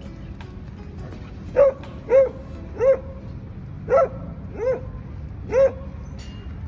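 A dog barking six times in short, sharp barks. They begin about a second and a half in and come roughly half a second to a second apart.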